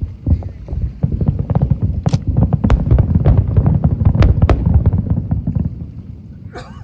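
Fireworks display: a rapid barrage of aerial shell bursts, dozens of bangs and crackles in quick succession over a continuous low rumble, thinning out after about five seconds.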